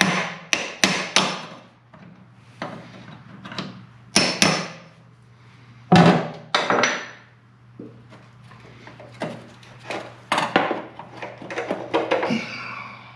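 Hammer driving a punch against the metal locking ring of a Ford Ranger's in-tank fuel pump sending unit to knock it loose: sharp, irregular metallic strikes in bunches, some ringing briefly.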